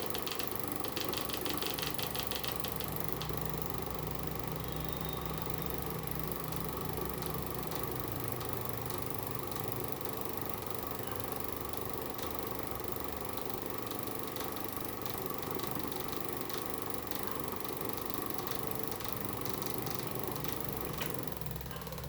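Electric fan motor running with a steady hum, with a fast rattling tick during the first few seconds.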